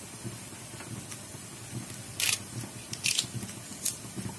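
Kitchen scissors snipping green chillies: three short snips a little under a second apart, starting about halfway in, the first the loudest.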